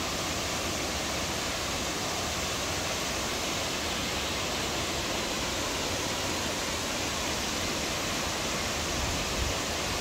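Steady rush of the Kravice waterfalls, many cascades pouring into a pool, heard as an even, unbroken noise of falling water.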